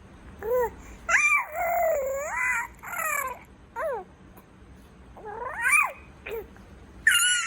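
Baby boy vocalizing in a run of high-pitched calls that glide up and down, one long wavering call about a second in and a loud one near the end.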